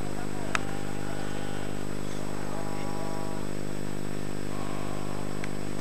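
A steady low drone, like a running motor, with a single sharp click about half a second in.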